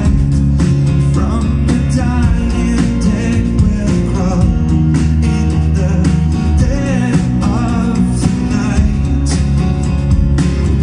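A small band playing a song live: strummed acoustic guitars over bass guitar and a drum kit, with a man singing lead.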